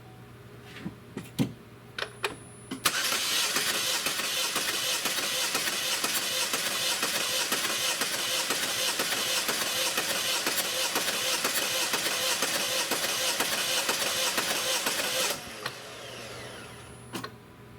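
2.4-litre Ecotec four-cylinder engine cranking on its starter for about twelve seconds during a compression test, with spark plugs pulled from the number 3 cylinder and its companion cylinder. A few light clicks come before it, and it stops abruptly, leaving a short falling whine.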